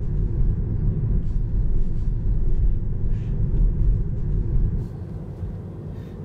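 Low, steady rumble of road and tyre noise inside the cabin of a moving Tesla Model 3, an electric car with no engine note, at about 40 km/h. The rumble drops in level about five seconds in.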